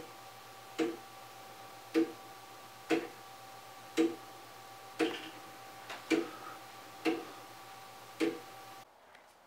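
Wooden-geared pendulum clock ticking steadily, about one tick a second, each a sharp wooden click from the escapement; the ticking stops near the end.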